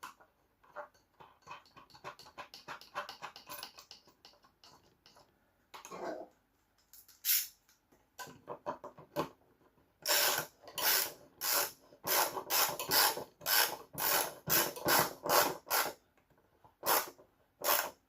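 Socket ratchet clicking as nuts are run down. First comes a softer run of fine ticks; then, from about ten seconds in, a fast series of louder ratcheting strokes, roughly three a second, with a couple more near the end.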